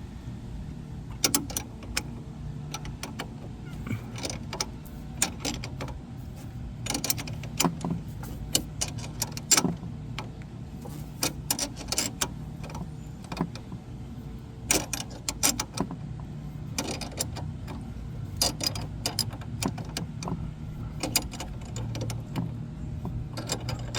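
Hand tools clicking and clinking on metal as a wrench tightens a brake-line bracket bolt at the wheel, in irregular sharp taps over a steady low hum.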